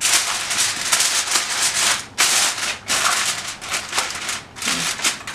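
Aluminium foil crinkling and rustling as it is spread over a baking tray and pressed down around its edges, in several spells with short pauses between them.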